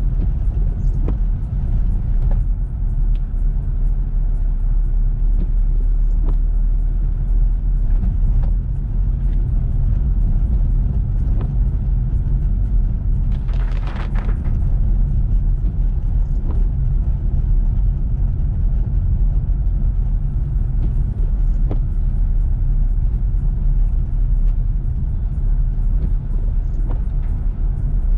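Car driving in heavy rain: a steady low rumble of road and engine noise, with scattered light ticks and a brief louder rush about fourteen seconds in.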